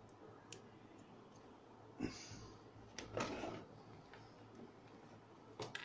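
Faint handling noises from wiring a small 12-volt gear motor: a knock about two seconds in, a click and a short rustling scrape just after three seconds, and a click near the end, as wires and spade connectors are handled. The motor itself is not running.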